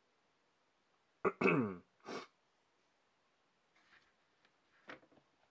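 A person clears their throat with a short cough about a second in. Faint light clicks of small parts being handled in a plastic parts tray follow near the end.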